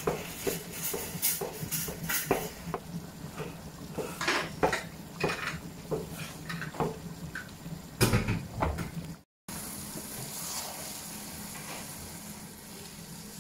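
Wooden spoon knocking and scraping against a metal pan while glutinous rice is stirred into bubbling coconut-milk and brown-sugar syrup, with many short clicks and a louder knock about eight seconds in. After a brief break, only the steady hiss of the boiling syrup is left.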